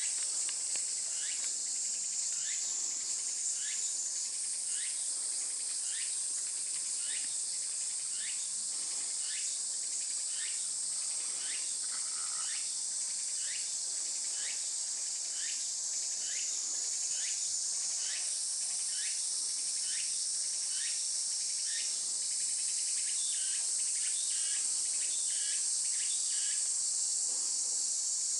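Tsukutsukuboshi cicada (Meimuna opalifera) singing: a short rising phrase repeated about once every 0.7 s over a steady high-pitched buzz, the phrases quickening near the end.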